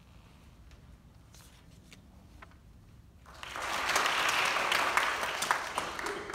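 Small audience applauding, starting about halfway through with a dense patter of claps and dying away near the end. Before it, only quiet room sound with a few faint taps.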